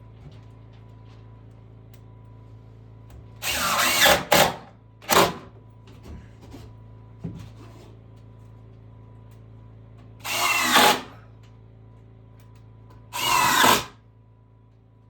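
Power drill run in several short bursts, each lasting about a second or less, its motor pitch rising and falling within each burst.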